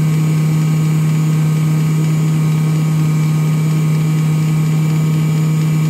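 A Sun distributor tester running with a steady hum as its motor spins a 1967 Oldsmobile 442 distributor, during the vacuum advance test.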